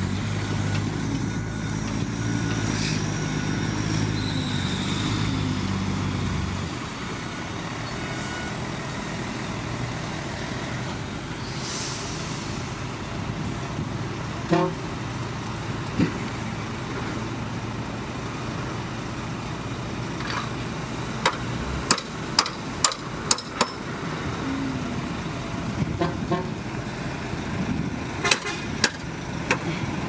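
Heavy diesel dump truck engines running. One is close and loud for the first six or so seconds, then drops to a quieter drone. In the second half come scattered sharp knocks, with a quick run of them a little past the middle and more near the end.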